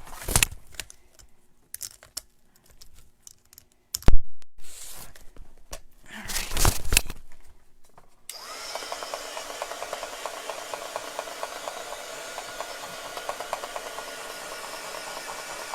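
Knocks and clicks of handling, one loud knock about four seconds in, then a heat gun switches on about eight seconds in and runs steadily, its fan blowing to dry wet acrylic paint.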